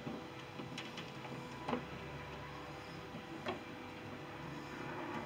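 Four light, irregularly spaced clicks and taps as the rear cargo door's latch hardware is handled and refitted by hand, the loudest a little under two seconds in, over a faint steady hum.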